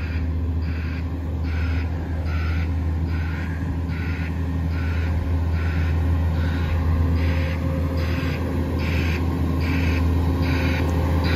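Side-loader garbage truck running with a steady low engine hum, while a pulsing warning alarm sounds about twice a second.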